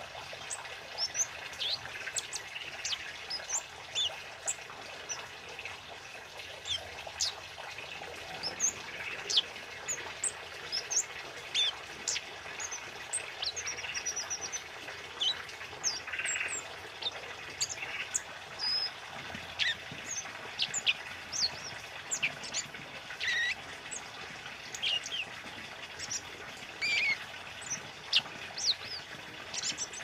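Scarlet-headed flowerpecker (kemade) calling actively: a busy run of thin, high chirps and short downward-sliding notes, over a steady background hiss.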